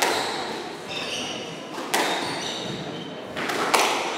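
Squash doubles rally: about four sharp hits of the ball off rackets and the court walls, echoing in the hall, the last two in quick succession. Between the hits, shoes squeak on the wooden court floor.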